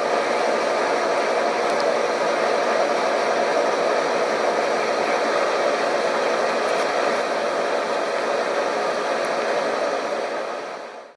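Wastewater aeration tank running: a steady rushing noise of air churning through pig-manure wastewater. It cuts off suddenly at the end.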